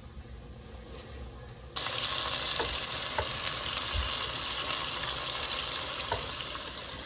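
Breaded chicken tenders frying in hot oil: a loud, steady sizzle that starts suddenly a little under two seconds in.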